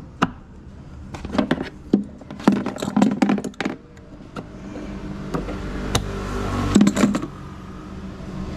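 Clicks and knocks of a hydraulic seat damper (gas strut) being handled and snapped onto the scooter seat's mounting brackets. From about halfway, a motor vehicle's running noise grows steadily louder underneath.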